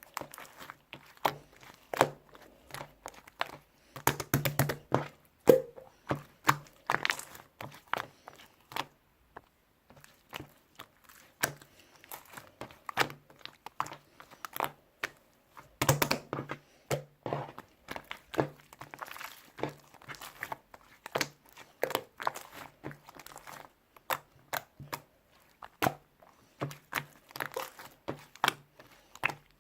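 Slime being squeezed, poked and stretched by hand, giving a steady stream of irregular sharp clicks, pops and crackles, with a couple of denser, louder flurries.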